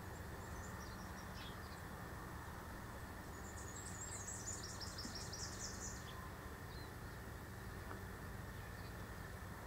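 Faint high-pitched bird calls over a steady low background hum: a few thin chirps in the first second or so, then a quick twittering run of high notes from about three and a half to six seconds in.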